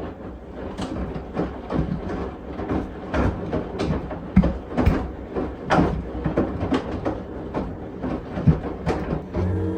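AQUA drum-type washing machine running: a steady low hum with regular knocks about twice a second as the drum turns the load.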